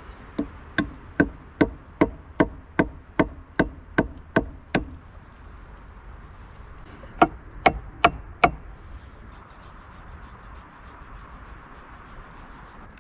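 Repeated strikes of a tool on wood, knocking at an even pace of about two and a half a second, a dozen in a row, then after a pause five more. Each knock has a short hollow ring.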